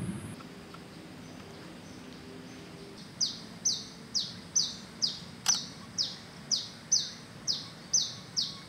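A bird calling: a steady series of short, high notes, each sliding downward, about two a second, starting about three seconds in. A single sharp click about halfway through.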